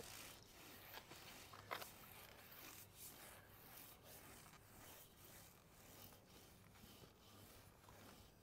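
Faint dry scrubbing of a broom's bristles over mosaic pool tiles in repeated strokes, buffing dried grout haze off the tile faces. One stroke, about two seconds in, is louder and sharper.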